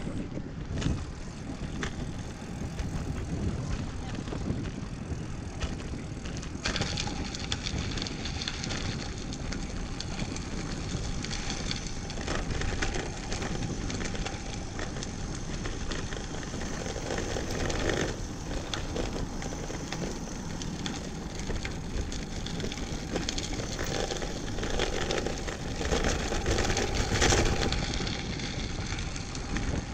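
Wind rushing over the microphone of a moving road bike, with the rolling noise of its tyres. The noise is steady and swells a little around a quarter of the way in and again near the end.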